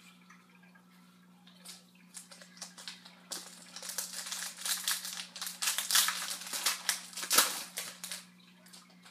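A foil trading-card pack wrapper crinkling and being torn open, a dense run of crackling that builds up and is loudest in the second half, over a steady low electrical hum.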